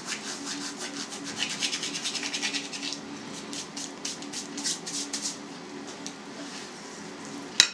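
Cumin seeds being rubbed between the palms over a bowl of filling, crushing them to release their aroma: a quick run of rubbing strokes, several a second, growing softer after about five seconds. A short sharp click comes just before the end.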